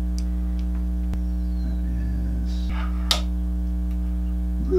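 Steady electrical hum with many overtones, constant in level throughout. Over it come a few faint handling ticks and rustles and one sharp click about three seconds in.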